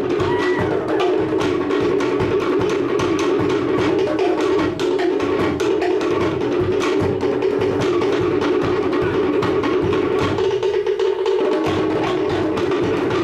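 Cook Islands traditional drum ensemble playing a fast, driving rhythm, dense rapid strokes on wooden slit drums over a deeper drum. The deep low end drops out for about a second near the end.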